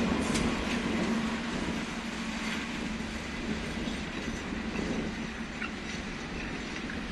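Pacific National NR-class diesel-electric locomotives NR121 and NR108 passing, their engines making a steady drone that eases slightly as they move away. Steel wheels clatter over the rail joints.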